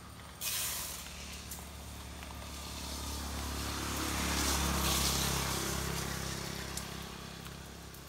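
A vehicle passing: a rushing hiss that swells to a peak about five seconds in and then fades, with a low engine hum under it at the loudest part. A sudden burst of hiss starts about half a second in.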